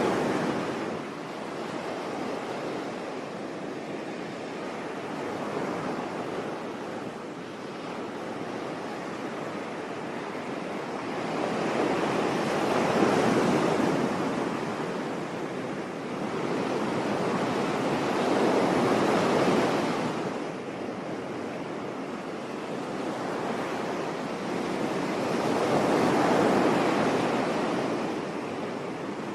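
Sea surf washing onto a beach: waves swell up and fall back several times, every six to seven seconds or so, over a steady hiss of water.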